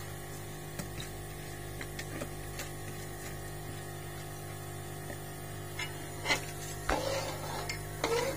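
A steel spoon scraping soaked rice from a plastic colander into a pot of water: soft taps and scrapes over a steady low hum, turning to louder sloshing and stirring of rice in the water in the last two seconds.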